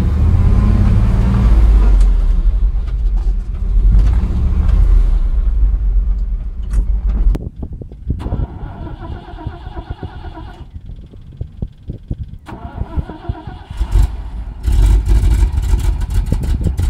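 Old Dodge V8 truck engine running: a loud, deep rumble heard from inside the cab, dropping suddenly to a much quieter sound about seven seconds in, then loud again from about fifteen seconds on.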